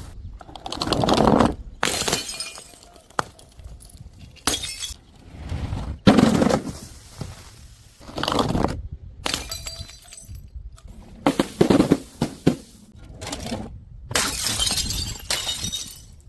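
Glass bottles smashing one after another: about eight separate crashes of breaking, shattering glass, each cut off abruptly before the next.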